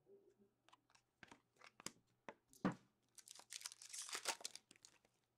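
A trading-card pack wrapper is faintly crinkled and torn open, with scattered clicks of cards being handled and one sharper click a little before the middle. The longest crinkling tear comes just past halfway.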